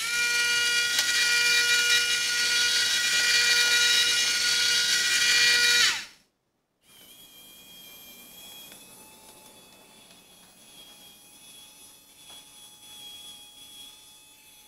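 A small motor whine with hiss inside the motorized soup can, loud and steady for about six seconds, sounding like a small power tool, then dropping in pitch as it cuts off. After a short gap a much quieter motor whine with light clicks runs as the lid tilts open and the disco ball rises.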